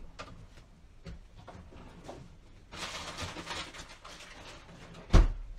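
Off-camera household handling noises in a small room: a stretch of rustling about three seconds in, then one sharp, loud knock near the end.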